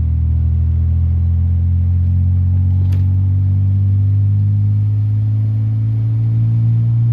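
A 1938 SS Jaguar 3½-litre's straight-six engine running steadily while the car is driven, its note rising gradually over the last few seconds as it picks up revs. A single sharp click comes about three seconds in.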